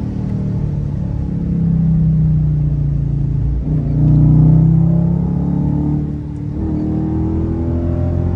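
Dodge HEMI V8 engine running hard under acceleration, its pitch climbing, breaking about three and a half and six seconds in, then climbing again.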